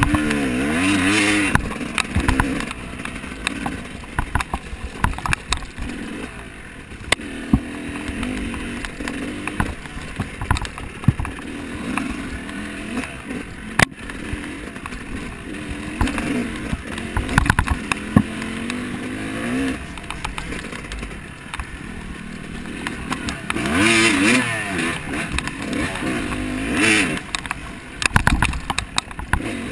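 A small off-road vehicle engine revving up and down again and again, with frequent knocks and rattles. The strongest surges come near the start and twice near the end.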